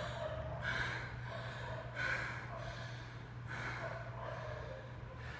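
Performers breathing heavily in short, audible gasps, about one breath a second, over a steady low hum.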